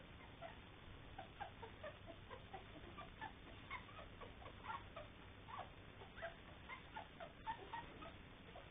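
Three-week-old puppies squeaking faintly, a run of short, high peeps several times a second.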